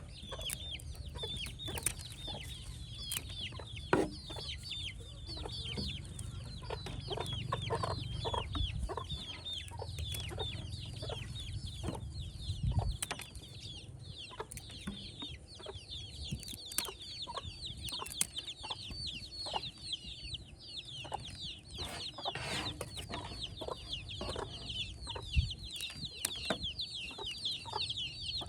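Chickens calling: a dense, steady stream of short, high, falling chirps, with scattered knocks and taps.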